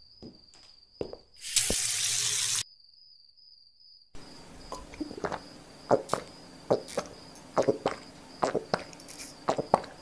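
A kitchen tap runs for about a second into a glass at the sink. After a short pause come a dozen or so gulps as the glass of water is drunk. A faint steady high whine sits under everything.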